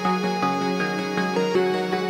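Outro background music: a held low drone note under a run of short melodic notes.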